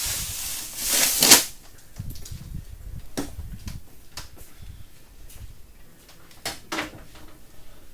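Blizzard wind gusting and buffeting the microphone, with a loud gust in the first second and a half, then lower rumbling and scattered clicks.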